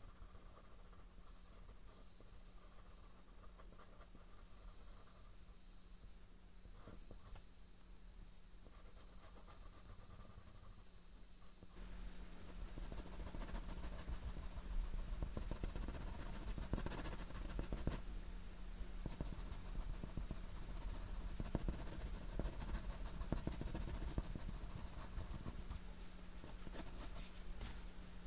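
Pencil scratching on paper in short, repeated strokes while sketching and shading a drawing. The scratching gets clearly louder and closer about twelve seconds in.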